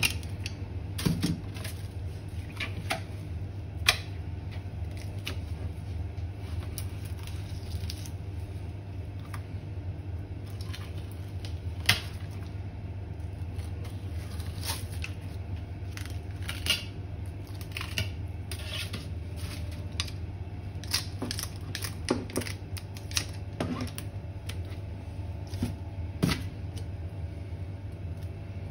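Scattered metal clicks and taps from a filleting knife, kitchen scissors and a steel chainmail glove against a plastic cutting board as a sea bream is filleted, over a steady low hum.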